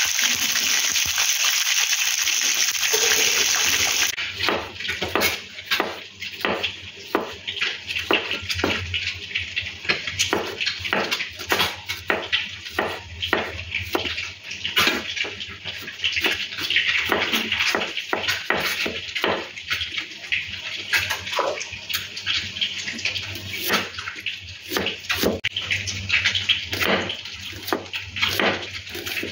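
Peeled boiled eggs sizzling in hot oil in a wok for the first few seconds. Then a large kitchen knife slices garlic cloves and shallots on a wooden chopping board, each cut ending in a sharp knock on the board, about one or two a second, over a steady background hiss.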